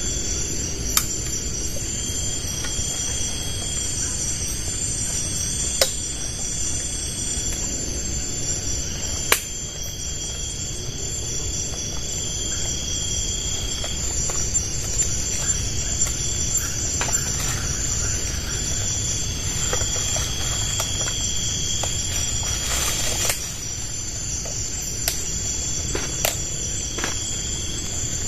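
Insects, crickets or cicadas, chirping steadily in a high continuous chorus over a low steady background noise, with a few sharp clicks scattered through.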